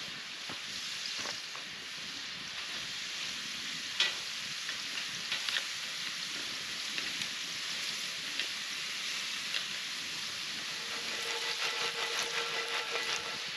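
Diced potatoes sizzling in a cast-iron skillet over a campfire, with a few sharp clicks of a metal spatula on the pan. Near the end comes a pitched metallic scrape and rattle as the skillet is shaken on the metal grill grate.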